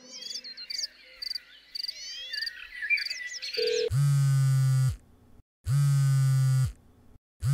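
Garden ambience of chirping birds and insects, then a mobile phone buzzing with an incoming call. The buzz comes three times, each about a second long, with short gaps between.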